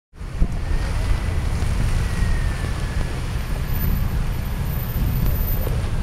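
Snowstorm wind buffeting the microphone in a steady low rumble, with cars going by on the slushy street underneath.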